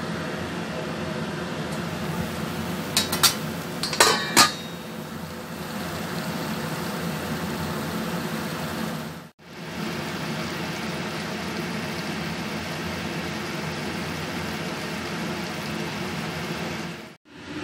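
Metal cookware clinking: a few sharp clinks of a stainless steel pan lid and metal against a wok, about three to four and a half seconds in. Under it runs a steady hiss and hum of food cooking on the stove.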